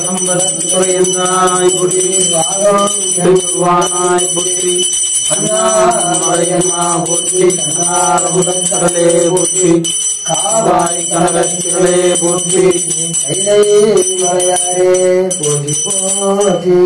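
Puja bell rung continuously during an aarti while men chant a hymn to Shiva in long held notes.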